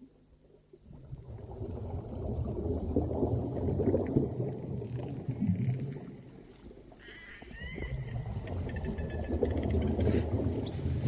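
Whale song recording. Two long, low rushing swells rise and fade, a run of short upward-sweeping calls comes just past the middle, and a high rising whistle sounds near the end.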